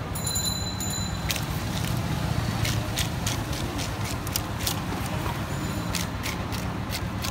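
A large katla carp being cut and scraped on an upright boti blade: a run of irregular sharp scraping clicks, more frequent near the end, over a steady low rumble of street traffic.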